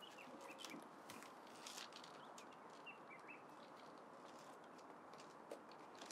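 Near silence: faint outdoor ambience with a few small bird chirps and scattered light clicks.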